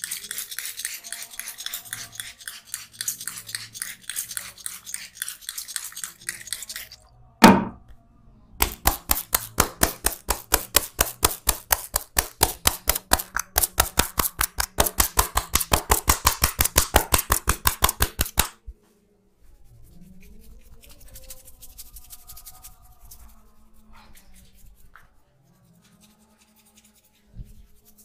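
A barber's hands working a head massage: fast rubbing and tapping at first, one loud smack, then about ten seconds of steady, sharp rhythmic slaps at about four or five a second, after which only faint handling sounds remain.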